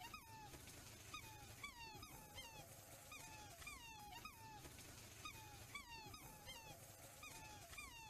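Black swans calling: a quick, faint series of short high calls, each bending in pitch, about two a second, some overlapping.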